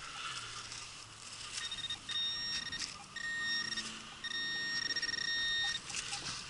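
Metal detector sounding its high target tone three times, each held steady for about a second, over a buried coin-sized metal target.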